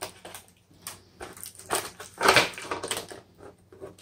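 Packaging being handled: irregular crinkling and scraping of a cardboard box insert and tape as a taped-in thermometer probe is pulled free, loudest a little past halfway.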